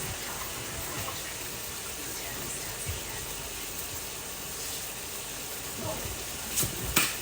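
Tap water running steadily into a sink, with a few sharp knocks near the end.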